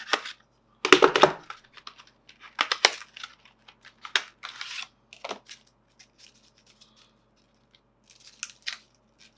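Packaging being torn open and crinkled by hand: a run of short rips and crackles, the loudest about a second in, thinning out after about five seconds.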